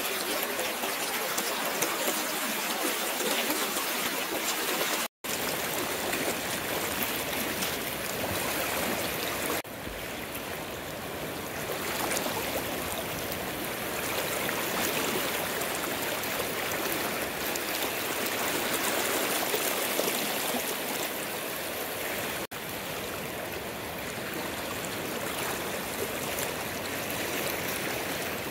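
River water flowing, a steady rush of running water, with a momentary dropout about five seconds in.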